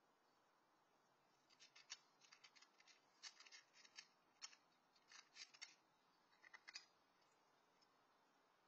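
Domestic cat eating dry kibble from a metal bowl: quick, irregular crunches in short bursts that begin about a second and a half in and stop about a second before the end.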